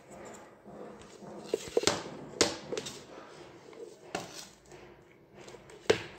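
Handling noise from a plastic switching power-supply brick and its cord and plug being turned over in the hands: rustling with a few sharp knocks and clicks, the loudest near the end.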